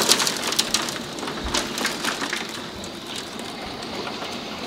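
Heavy grape-sized hail and rain pelting the house and yard: a dense rush with many sharp hits. It eases over the first few seconds, then carries on at a lower level.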